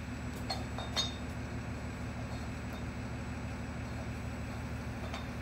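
A few light metallic clinks, the loudest about a second in, as a threaded cap-puller tool is twisted into the side cap of an oilfield pump, over a steady low hum.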